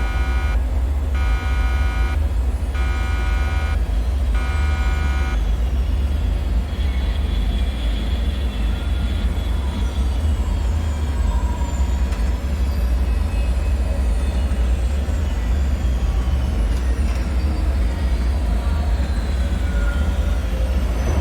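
Dark ambient soundscape with a deep, steady low rumble throughout. A buzzing alarm-like tone pulses on and off about every second and a half, four times, and stops about five seconds in; after that, faint squeal-like tones slowly fall in pitch over the rumble.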